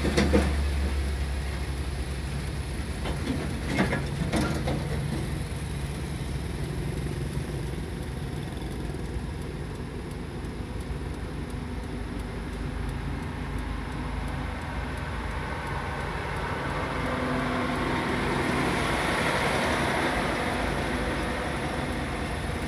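Truck engine idling from inside the cab, a steady low hum, with another heavy truck passing close alongside that grows louder near the end.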